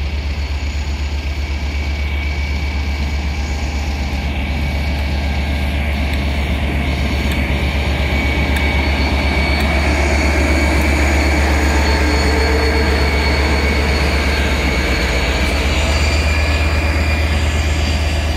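West Coast Railways Class 57 diesel-electric locomotive, with its EMD two-stroke engine, running past close by with a rake of Mk4 coaches: a steady low engine rumble with wheel and rail noise, loudest about ten to twelve seconds in as it draws level.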